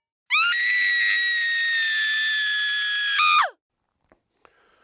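A single high-pitched scream, held for about three seconds, rising as it starts and falling off sharply at the end.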